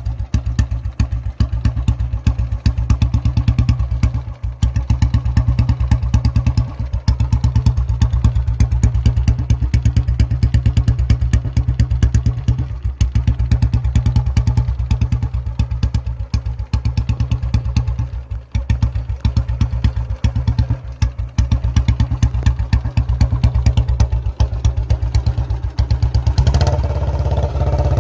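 Royal Enfield Bullet single-cylinder engine idling with an even, steady thump, running cold just after being started following a month standing. About 26 seconds in it picks up and runs louder and fuller.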